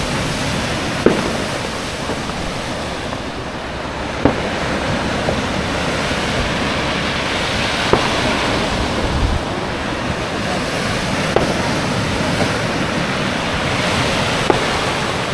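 Sea surf breaking and washing on a stony, rocky shore, a steady rushing noise with wind buffeting the microphone. A few short sharp knocks come about every three seconds.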